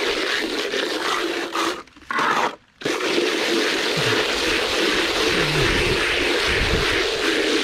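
Steady scraping, crunching noise that cuts out twice, briefly and abruptly, about two seconds in.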